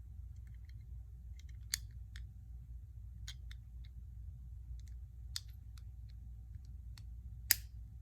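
Scattered sharp clicks and snaps of small plastic Lego pieces being handled and pressed together, with two louder snaps about two seconds in and near the end, over a steady low hum.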